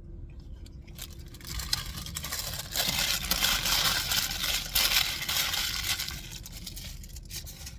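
Crinkling and rustling of a paper sandwich wrapper being handled, with many small crackles, loudest for a few seconds in the middle.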